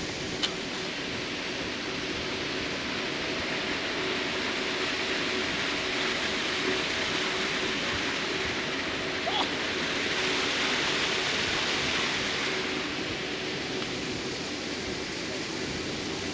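Waterfall rushing: a steady, even roar of falling water that swells a little partway through. A faint steady hum sits underneath.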